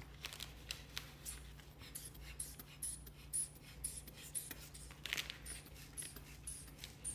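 The rubber hand bulb of a manual blood pressure cuff being squeezed over and over to inflate the cuff around the leg. Each pump gives a short squeak and puff of air, about two a second.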